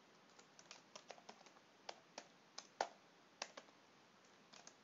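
Typing on a computer keyboard: a faint run of separate, irregularly spaced key clicks.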